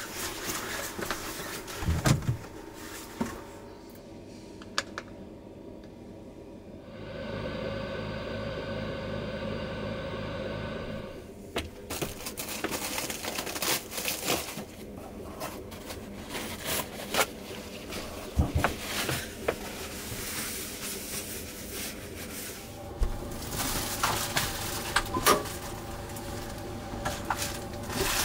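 Knocks, clicks and rustling of someone moving about and handling things in a small room, with a steady noise lasting about four seconds near the middle.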